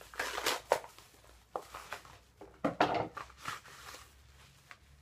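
Mailer packaging rustling, crinkling and tearing as a package is opened, in irregular bursts that die down near the end.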